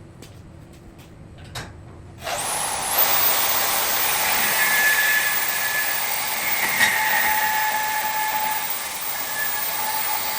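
Angle grinder with a cut-off wheel cutting through steel C-channel: the motor whine rises as it spins up about two seconds in, then a steady loud hiss of cutting with a high screech, and the whine falls away as it winds down at the end.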